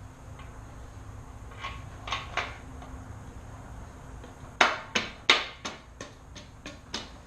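Sharp knocks and clinks of tools and parts being handled while a dirt bike swing arm is fitted: a few light ones, then a quick run of about eight louder ones in the second half.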